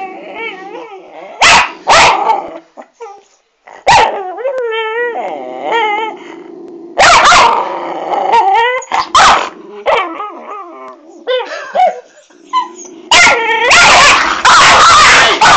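Two Jack Russell terriers squabbling over a treat: sharp barks, wavering growls, and near the end a long burst of loud snarling and barking. It sounds fiercer than it is, a squabble rather than a real fight.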